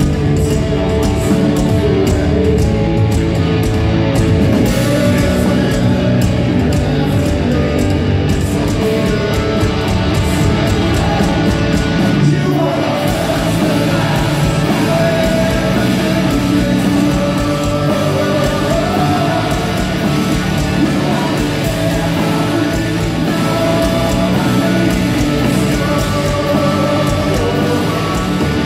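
Heavy rock band playing live: loud electric guitars with singing over them.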